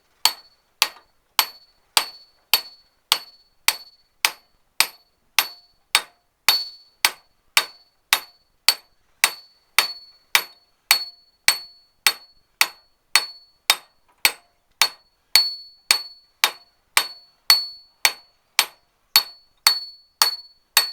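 Hammer striking a bearing drift in a steady rhythm, about three blows every two seconds, each with a short metallic ring: a bearing being driven onto a Citroën 2CV driveshaft output hub until it seats.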